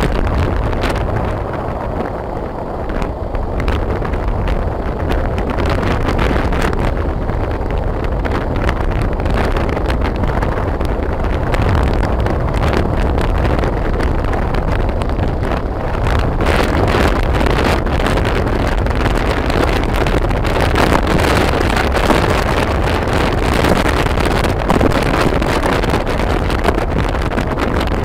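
Wind buffeting a phone's microphone on a moving motorbike, a steady gusty rumble over the bike's engine and road noise, growing harsher about halfway through.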